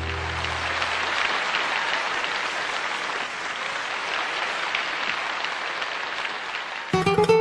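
A crowd applauding with steady, even clapping. Plucked-string music comes in near the end.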